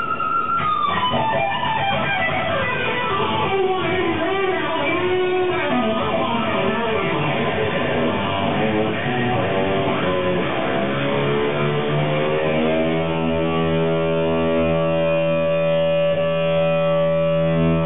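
Electric guitar played through an amplifier. A held high note bends down about half a second in and leads into descending melodic lines. In the last few seconds a full chord rings out and is held.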